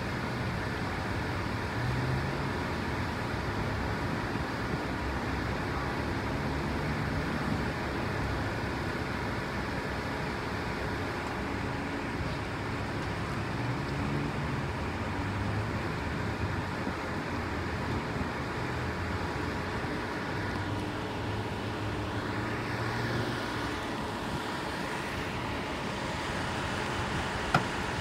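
Steady noise of road traffic and running vehicle engines, with a single sharp click near the end.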